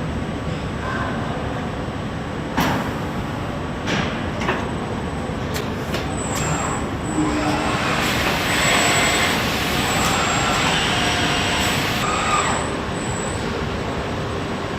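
Assembly-line machinery running steadily, with several sharp clanks in the first half, then a hiss with faint high whistling tones from about six seconds in that stops near the end.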